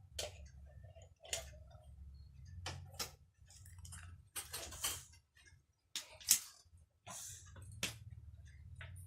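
Wooden toy blocks clacking and knocking together in irregular sharp clicks as they are handled and stacked, over a faint low hum.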